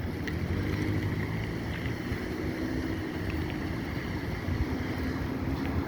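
Strong wind blowing across the microphone: a steady, fluctuating low rumble of buffeting with a hiss above it.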